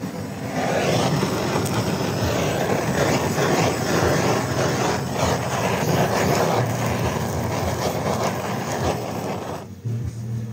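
Handheld butane blowtorch flaming pulled pork on a flat-top griddle: a loud, steady rushing hiss that starts about half a second in and cuts off near the end.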